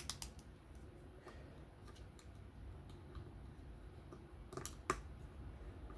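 Scattered small clicks and taps of a screw and pocket clip being handled and fitted to a folding knife, with two sharper clicks near the end.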